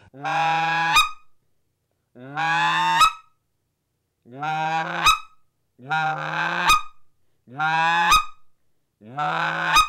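Wooden goose call blown in six slow clucks, one about every second and a half. Each is a low raspy scratch note that breaks at the end into a short, sharp squeal as the caller drives his tongue up to snap the call over.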